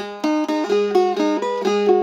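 Phin, an Isan plucked lute with a mahat-wood body, played solo: a quick picked melody, several notes a second, over a steady open-string drone.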